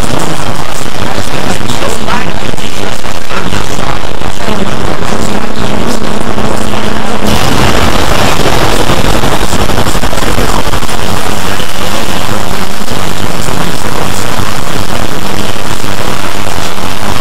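A loud, distorted jumble of many video soundtracks playing at once, cartoon voices, music and effects piled together and clipping. About seven seconds in it turns harsher and hissier.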